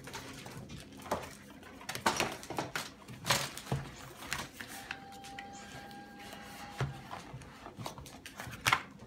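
Plastic pastry mat being unrolled and smoothed out on a wooden table: a run of crinkles, rustles and light knocks, loudest in the first half and with one sharp knock near the end. A faint steady tone sounds for about two seconds midway.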